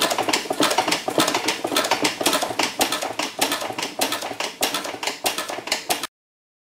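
Rapid, irregular clicking and knocking from the mechanism of a 1937 Stover stationary engine during a start attempt, with no steady running note: the engine is not firing because the fuel tank is short of gas. The sound cuts off suddenly near the end.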